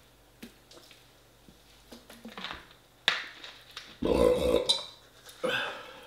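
A man burps loudly about four seconds in, after gulping lemonade from a plastic bottle, with a second, shorter burp about a second later. Before that come small swallowing and bottle sounds.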